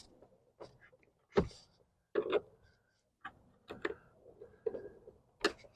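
Scattered light clicks and knocks, about nine at uneven intervals, from hand tools and hard plastic being handled while a truck's interior door panel is taken off.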